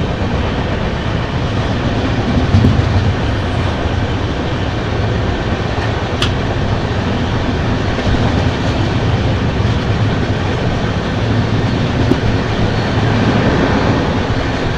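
12985 Double Decker Express running along the track: a steady noise of wheels on rails and coach running gear, with one sharp click about six seconds in.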